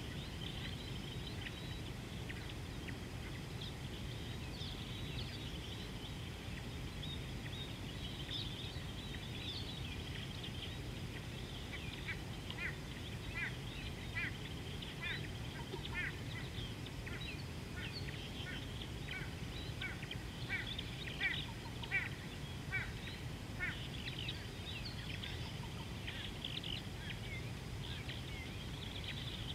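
Birds calling over a steady low background rumble, with a run of short, sharply falling call notes repeated about once or twice a second from roughly twelve seconds in until about twenty-four seconds.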